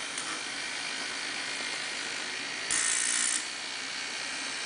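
Small brushed DC motor running with its yoke and permanent magnets removed, the bare armature spinning with a steady whir and brush hiss. A louder hiss cuts in about three seconds in and stops well under a second later.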